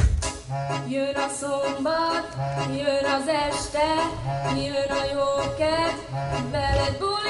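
Music playing: a song with a wavering sung melody over a low bass note that comes back about every second and a half, with no drum beat.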